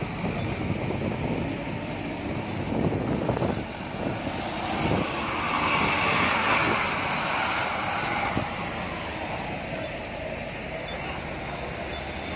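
Truck engines and road traffic noise, with wind buffeting the microphone; the noise swells and brightens for a few seconds about halfway through.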